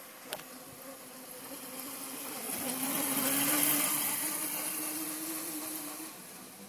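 Child's battery-powered electric mini dirt bike humming past, its motor note rising slightly as it grows louder close by about halfway through, then fading as it rides away. The battery is running low.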